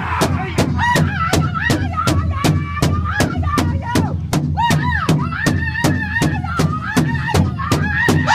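Powwow big drum struck in unison in a steady, fast beat of about four strokes a second, with a high voice singing over it in long wavering, gliding notes.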